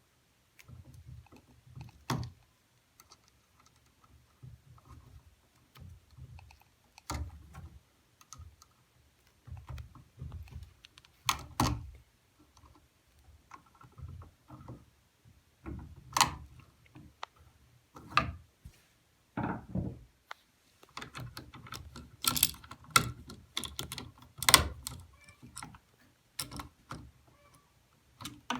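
Irregular small clicks, taps and rattles of hands at work, with a handful of sharper knocks and a cluster of them near the end.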